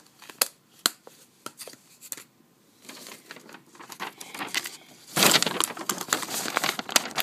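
Close handling noise: a few sharp clicks, then rustling that turns into a loud, dense crackling scrape about five seconds in as the camera is picked up and moved.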